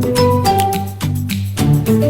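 Upbeat background music with a salsa-like beat: sustained melody notes over regular percussion hits.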